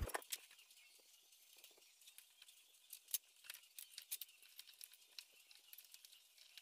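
Faint, scattered small clicks and scrapes of hands handling a brushless motor and its mounting bracket as they are fitted together.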